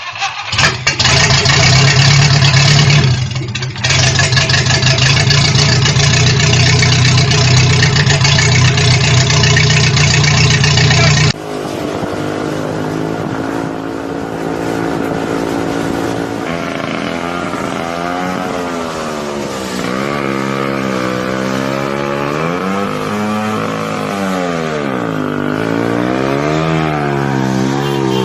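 A motorcycle engine starts and runs loudly and steadily. After about 11 seconds, an engine is revved up and down several times.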